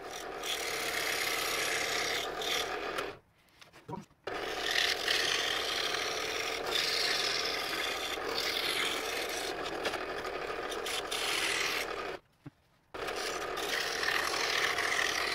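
Scroll saw running, its reciprocating blade cutting through a walnut board with a steady rasp that drops out briefly twice.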